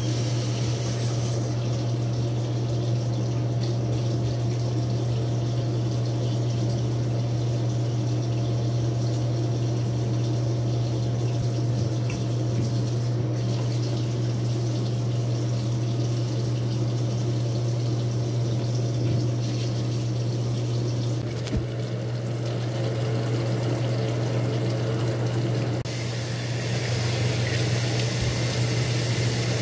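Water running steadily from a bathroom sink tap into the basin, over a steady low hum. About 26 seconds in the water sound brightens as water is splashed onto the face.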